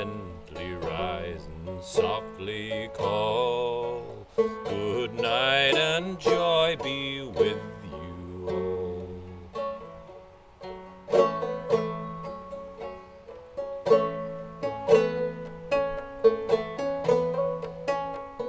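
Five-string banjo played clawhammer style in double C tuning with the fifth string dropped to E, tuned about a semitone low. A man's voice sings a slow, wavering melody over it for roughly the first half. After that the banjo carries on alone with crisp, rhythmic plucked notes.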